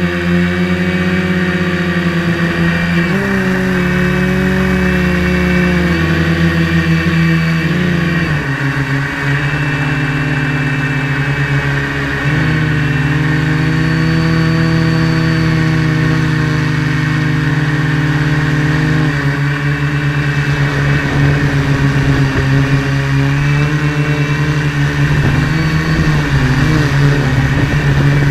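Large multirotor drone's electric motors and propellers buzzing in flight, the pitch shifting up and down in steps as the throttle changes, with a steady high whine above.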